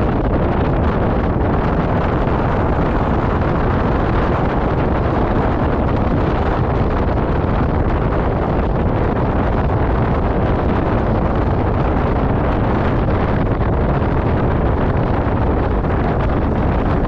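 Steady rush of wind on the microphone with the road noise of a car driving along a dirt road.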